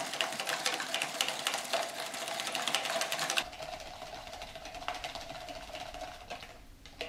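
Small wire whisk rattling rapidly against the sides of a plastic cup, mixing plaster of Paris into cold water. About three and a half seconds in the fast rattle cuts off abruptly and gives way to quieter, slower stirring.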